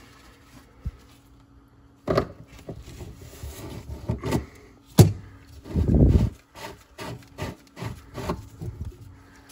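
Irregular knocks, clicks and scraping of hand tools and gloved hands working on pipe fittings in the cabinet under a kitchen sink, starting about two seconds in. The sharpest knock comes about five seconds in, followed by a heavier, deeper thud.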